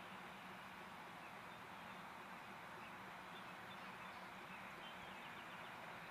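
Faint, steady outdoor background hiss with a low hum beneath it, and a few faint bird chirps in the middle.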